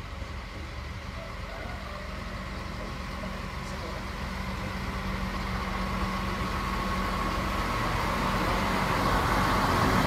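SNCF X 73500-series diesel railcar approaching, its engine hum and running noise growing steadily louder as it draws nearer.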